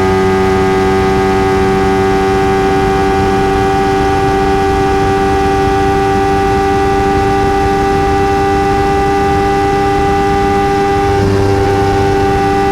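Kawasaki Ninja 300 parallel-twin engine and stock exhaust holding one steady high pitch at constant speed, with wind noise rushing underneath.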